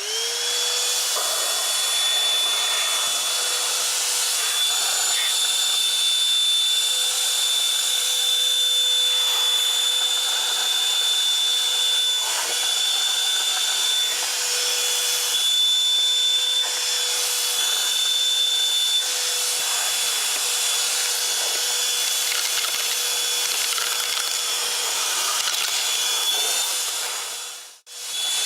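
Holife 90 W cordless handheld vacuum cleaner switched on, its motor spinning up and then running steadily with a high whine over an airy hiss. Near the end it cuts out briefly and starts up again.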